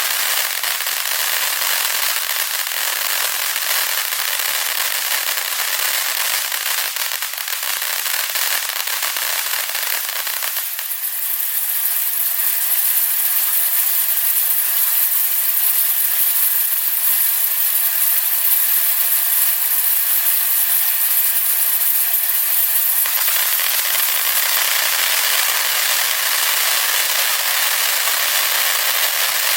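Consumer aerial finale firework cake firing: a loud, continuous stream of dense crackling and popping. From about ten seconds in until about twenty-three seconds in, the sound is thinner and lacks its deeper part.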